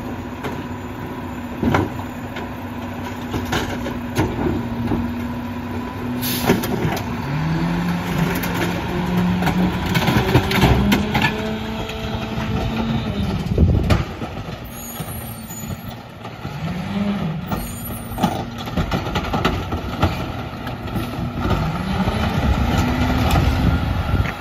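Diesel engine of a Heil 5000 rear-loader garbage truck running steadily, then pulling away: the engine note rises and drops several times as it accelerates through its gear shifts, with a few sharp hisses from the air brakes.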